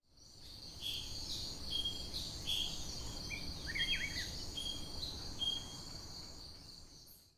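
Birds chirping over a steady high insect chorus, with a short run of quick warbling notes about halfway through; it fades in at the start and fades out at the end.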